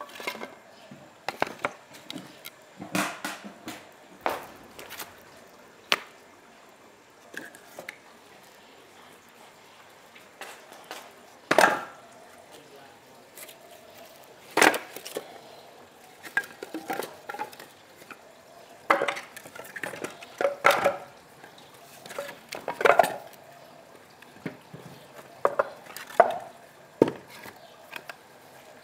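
Irregular knocks and clatter of kitchen work: utensils, dishes and food being cut on a board, with quiet gaps between. The sharpest knocks come about 12 and 15 seconds in, with a busier run of clatter a little after that.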